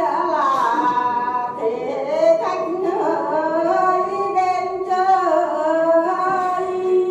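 A woman singing a Tày lượn folk song into a microphone, in long held notes that slide slowly up and down in pitch.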